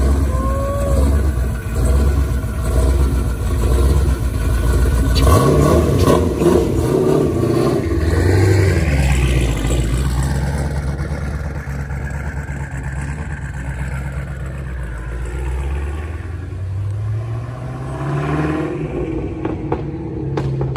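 A high-performance car engine running and revving loud, its note rising and falling several times, with a sudden surge about five seconds in.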